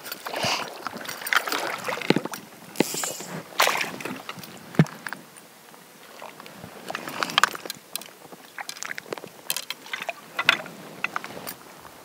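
Water sloshing and splashing around a trout in a landing net at the water's edge, mixed with irregular close-up knocks and rustles as the net and gear are handled.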